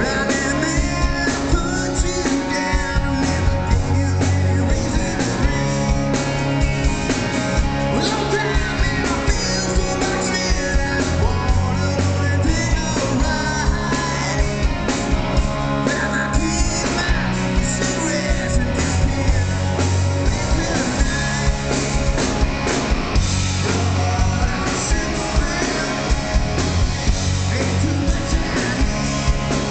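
Live rock band playing loudly: electric guitars, bass and a drum kit keeping a steady beat, with a male lead singer singing over them.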